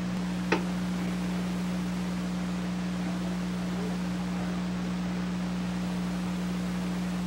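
Steady electrical hum with hiss, typical of an old video recording's sound track, with one sharp click about half a second in.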